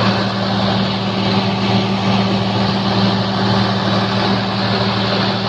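Diesel generator set running steadily at constant speed, a continuous engine drone with noise from its fans and exhaust.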